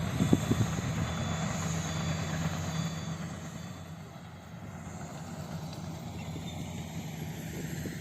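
Komatsu D85SS bulldozer's diesel engine running steadily, with a few sharp knocks in the first half second; the engine sound eases off about halfway through and then holds at a lower level.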